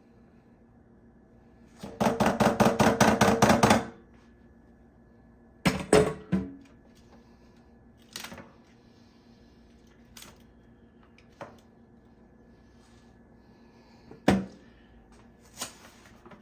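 A silicone spatula knocking and scraping against a mixing bowl while batter is emptied out: a quick run of about ten even strokes, then scattered single knocks and scrapes as the batter is spread in a foil-lined cake pan.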